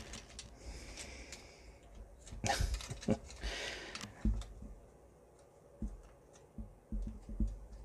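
Small clicks, taps and rubbing of hard plastic action-figure parts being handled and fitted together, with a couple of brief rustles a few seconds in.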